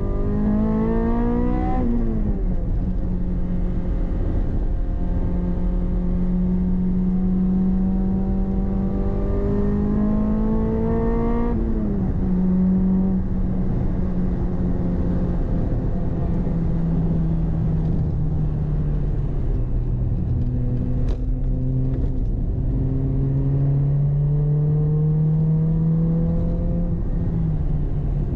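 The 2ZZ-GE 1.8-litre four-cylinder engine of a swapped Toyota MR-S, heard from inside the cabin over road and tyre noise, driven hard on track. The revs climb steadily under acceleration, then the pitch drops sharply as the revs fall, three times in all.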